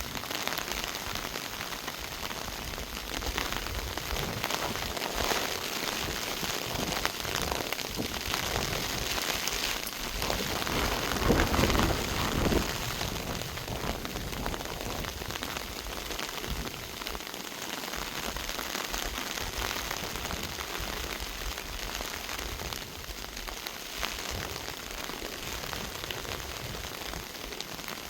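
Steady monsoon rain falling on tree foliage, an even hiss of drops that swells louder for a second or two about eleven seconds in.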